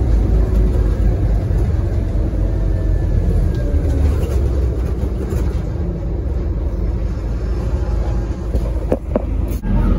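Diesel engine of a Scania OmniCity double-decker bus idling at a stop, a steady low rumble, with a few sharp clicks near the end.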